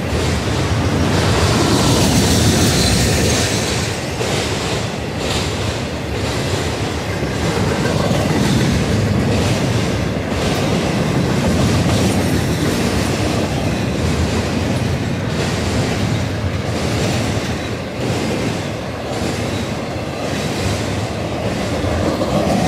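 Intermodal freight cars (trailers on flatcars and double-stack well cars) rolling past at track speed: a steady heavy rumble of steel wheels on rail with repeated clicks as the wheels cross rail joints, and a high squeal of wheels about two seconds in.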